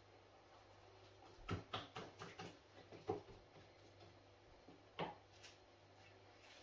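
Plastic cling film being pressed down onto pastry cream in a metal baking tray, with hands handling the tray: a run of short crinkles and light taps, a few more a little later, and one last sharper one.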